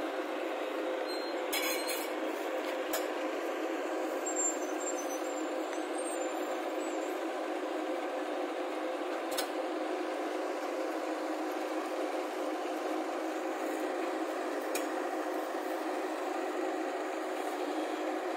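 JCB crawler excavator's diesel engine running steadily under load as the machine tracks along a flatbed trailer deck, with a few faint clicks.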